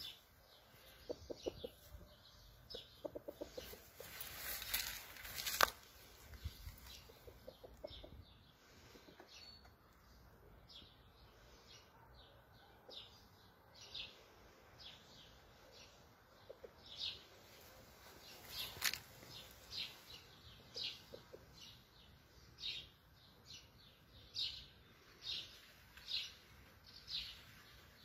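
Faint, repeated short high chirps from a small bird, coming evenly about one and a half a second in the second half, with a few low clucking calls near the start and two brief rustles.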